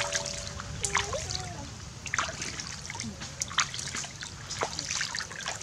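A fish being rinsed by hand in a shallow stream: water splashing and trickling in quick irregular splashes as it is swished through the water.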